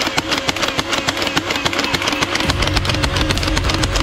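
Toy multi-barrel foam-dart blaster firing a belt of darts in a fast, even stream of clicks over a steady motor whir.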